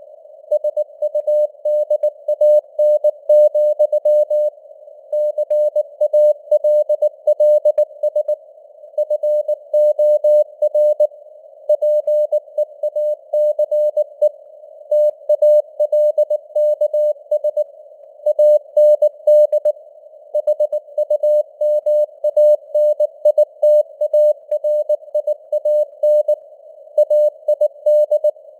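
Morse code (CW) sent at 19 words per minute as a single-pitch beep keyed in dots and dashes, with simulated radio noise hissing faintly around the tone between characters.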